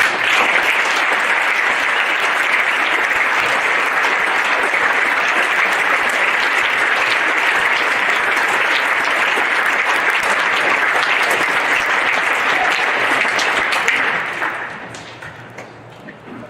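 Large audience clapping steadily, dying away over the last couple of seconds.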